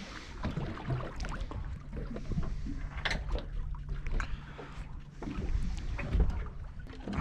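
Knocks and clatter of gear aboard a small fishing boat, over wind and water noise, with a steady low hum that stops about five seconds in.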